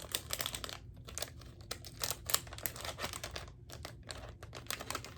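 Crinkly packaging being handled, making irregular crinkling and rustling crackles.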